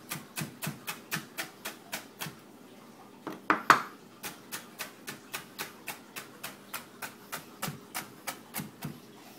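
Chef's knife chopping green bell pepper on a plastic cutting board: steady knocks of the blade on the board, about four a second. They pause briefly a little over two seconds in, then come back with one harder knock.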